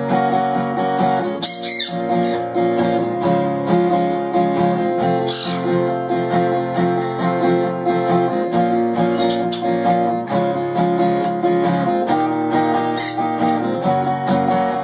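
Guitar music with picked and strummed notes, played steadily throughout.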